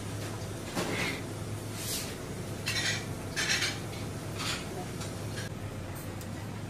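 Kitchen work at a fish-preparation table: about half a dozen short scrapes and clinks in the first five seconds, over a steady low hum.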